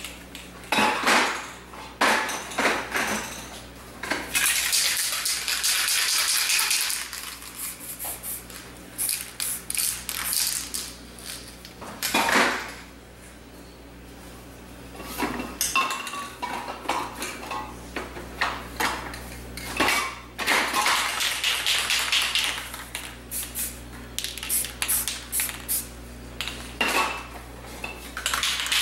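Aerosol spray paint cans being handled off-canvas: rapid rattling and clicking of the mixing balls as cans are shaken, and metal cans clattering against each other. There are two longer stretches of hiss, about a few seconds in and again past the middle.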